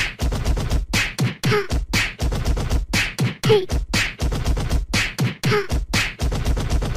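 A beatbox-style rhythmic beat of sharp percussive hits, about three to four a second, over a steady low pulse, with a short pitched vocal sound repeating about every two seconds.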